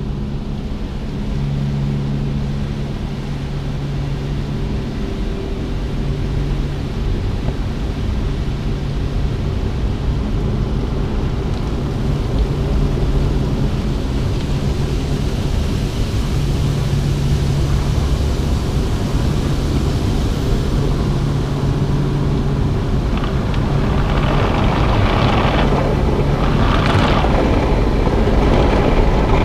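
Automatic gantry car wash heard from inside the car: a low machine hum that comes and goes over a steady rumble, with water and brushes washing over the windscreen. The splashing and scrubbing grow louder in the last few seconds.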